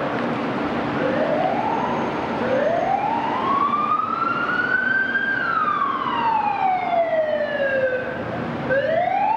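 Emergency vehicle siren wailing in the street: a short rise about a second in, then a slow climb for about three seconds, a slow fall for about three, and another climb starting near the end, over steady city traffic noise.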